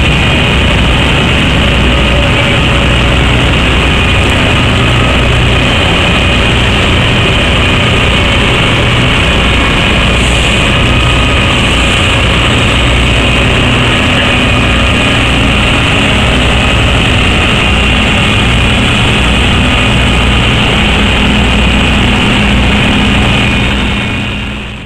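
Diesel engines of Claas Lexion 660 combine harvesters running steadily as the machines drive past. The sound fades out at the very end.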